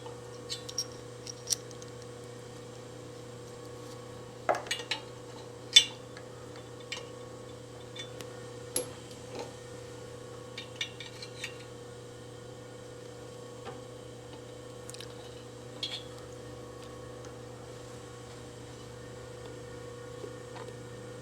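Scattered light metal clinks and clicks of hand tools being handled, a tap wrench being fitted onto a thread tap and tap follower, with the sharpest clink about six seconds in. A steady low hum runs underneath.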